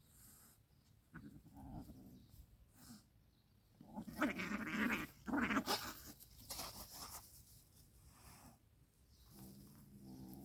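A ram bleating: loud harsh calls in the middle, then a long, low, steady bleat starting near the end.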